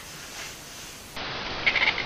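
Faint hiss, then a little over a second in an animal starts making rapid, high chirping calls in short trains.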